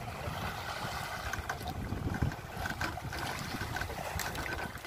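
Wind buffeting the microphone over choppy sea water, with water sloshing around a small boat and a few faint scattered knocks.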